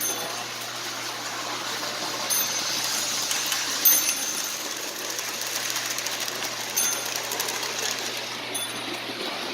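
Lionel 6220 O-gauge diesel switcher running around its track: a steady whirr and rattle from its electric motor and wheels, with its built-in bell dinging about five times at uneven intervals.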